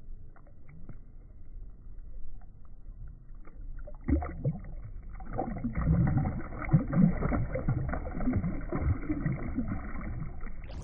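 Creek water splashing and sloshing, faint at first, then much louder and rougher from about four seconds in.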